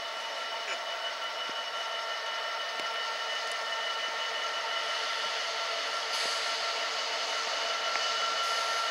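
EWS Class 66 diesel-electric locomotive moving slowly past, its EMD two-stroke V12 diesel running with a steady drone and high whine that grows gradually louder as it comes closer.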